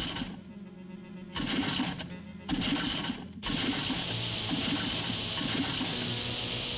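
Cartoon sound effects over the background music score: three short sputtering bursts from an outboard motor as its pull cord is yanked, the motor not catching, then from about three and a half seconds a steady rushing roar of a waterfall.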